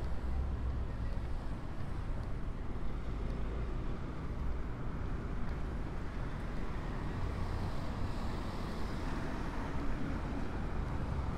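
City street traffic noise: a steady hum of passing vehicles, with a deep engine rumble that fades a couple of seconds in and builds again later on.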